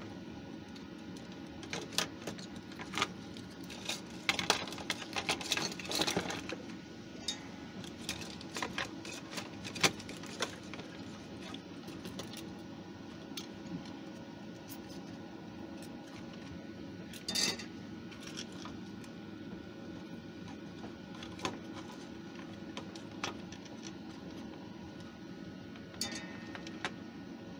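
Small clicks and clatters of a Stylophone's plastic case and circuit board being handled and screwed back together with a small screwdriver. The clicks bunch up in a run of clattering a few seconds in, then come singly, over a steady low hum.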